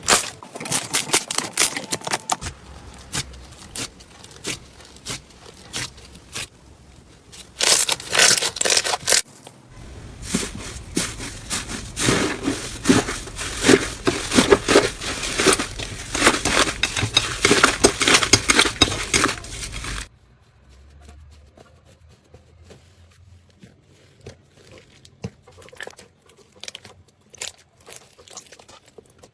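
Slime being handled, squished and poked, giving runs of sticky crackling and popping clicks. The sound changes at cuts about 2, 10 and 20 seconds in, and it is much quieter after the last cut.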